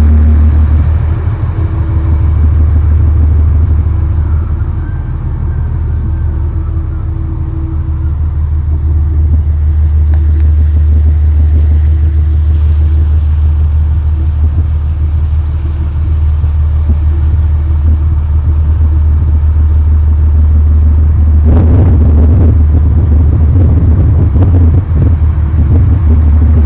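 Boat engine running steadily with a loud low rumble, turning rougher and noisier about 21 seconds in.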